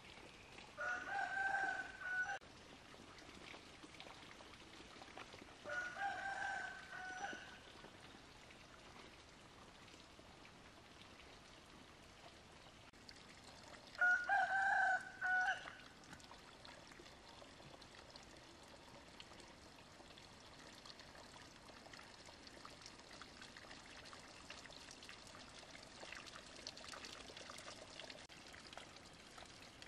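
A rooster crowing three times, each crow about a second and a half long, with the longest gap before the third. Under it runs a faint steady trickle of water.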